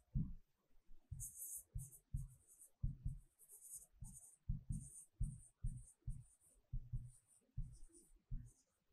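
Faint handwriting: short scratchy pen strokes on a writing surface, about two a second, each with a soft tap.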